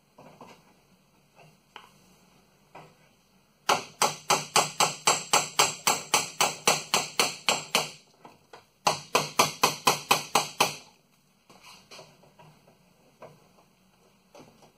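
Rapid metal-on-metal hammer tapping, about five taps a second, on a seized brake line fitting to shock it loose. A few light knocks lead into two quick runs of taps, the first about four seconds long and the second about two, with a short pause between.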